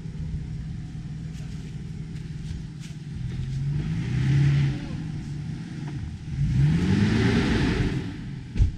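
Off-road vehicle engine running, revved up twice with the pitch rising each time and a rushing noise over each rev. A single sharp knock comes near the end.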